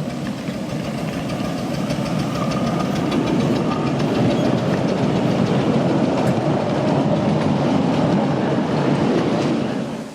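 Miniature railway locomotive and train running close by on the track: a steady rumble with a quick regular beat, growing louder over the first few seconds. It cuts off suddenly near the end.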